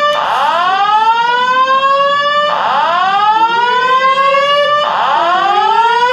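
Ceiling-mounted fire alarm horn sounding: a loud whooping tone that sweeps up in pitch and levels off, repeating about every two and a half seconds, three times.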